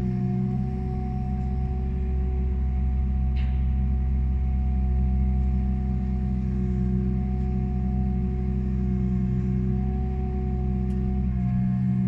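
Liebherr 926 excavator's diesel engine and hydraulics running steadily, with a low drone and a steady whine. A short sharp click comes about three and a half seconds in, and the low drone eases just before the end.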